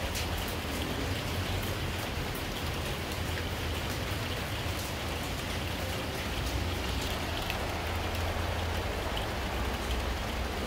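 Steady rain falling, with individual drops ticking throughout and a low rumble underneath.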